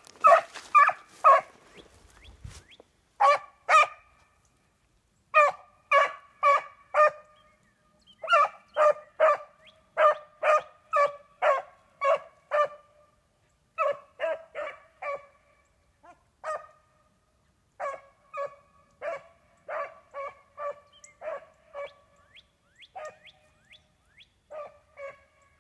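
A beagle baying while running a scent track alone: short, chopped barks at about two a second, in runs of two to ten with brief pauses between.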